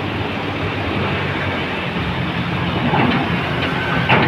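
Lonking CDM6016 mini excavator's diesel engine running steadily, with a sharp knock near the end.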